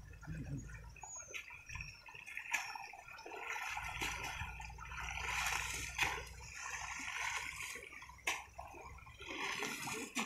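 Water running and gurgling down a shallow channel dug through sand, with a few sharp knocks and scrapes from a shovel digging in the channel.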